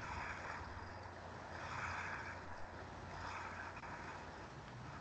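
Faint background noise of an open microphone on a video call: a steady low hum under a hiss that swells and fades about every second and a half.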